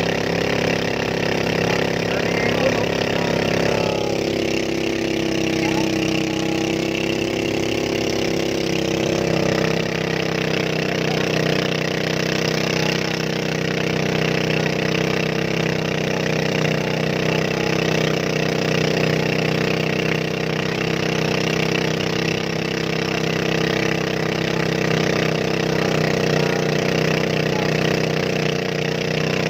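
Motorised bangka's small engine running steadily under way, its pitch shifting a little about four seconds in.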